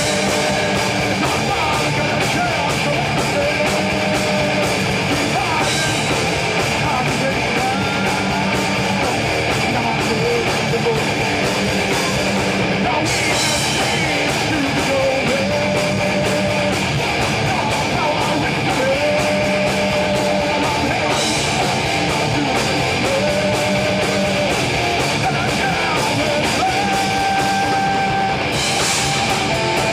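Live hard-rock band playing loud and steady: electric guitars, bass guitar and drum kit, with a line of long held notes that slide in pitch.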